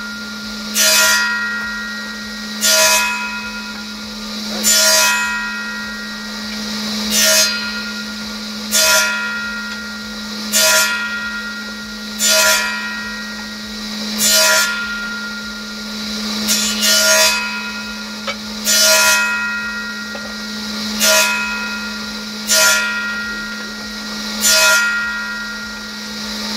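Circular saw of a combination woodworking machine running steadily and crosscutting timber into short segments: a loud cut about every two seconds, thirteen in all, over the motor's constant hum.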